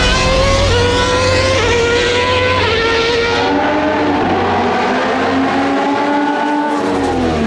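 Racing-car engine sound effect revving up through three quick gear changes, then a longer pass-by whose pitch falls near the end.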